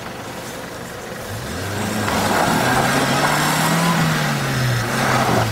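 Compact 4x4 SUV's engine revving as it drives through tall grass: the engine note climbs from about a second and a half in, holds highest around the middle with a rushing noise over it, then drops back near the end.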